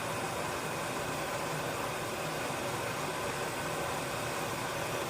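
Gas escaping in a steady, even hiss, as from a kitchen gas outlet.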